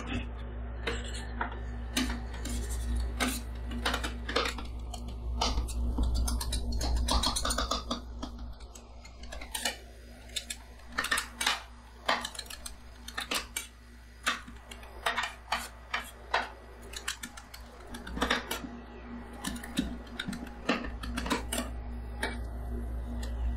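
Steel spatulas chopping and scraping on a stainless-steel cold plate: sharp, irregular metal clacks and scrapes as the ingredients are chopped into the freezing cream base for rolled ice cream. A steady low hum runs underneath.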